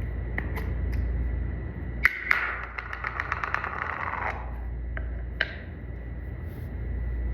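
Packaging being handled: a few sharp clicks, then about two seconds of rapid crackling ticks near the middle, over a steady low rumble.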